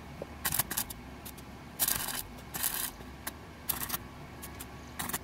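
Wire-feed welder arc going in short bursts, about five of them, each under half a second, while tack-welding steel tubing onto a hand truck frame.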